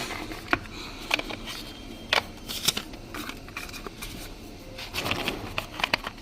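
Cardboard box and paper inserts being handled, with rustling and scattered light clicks and taps, more of them near the end.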